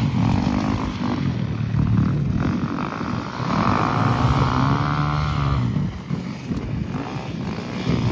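Flat track motorcycle engines running hard around the dirt oval, their pitch rising and falling as the bikes accelerate and pass.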